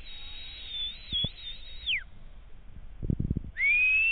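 A person whistling a long high note that rises, holds with small wavers for about two seconds and falls away, then a second rising whistle begins near the end. A few dull thumps come in between.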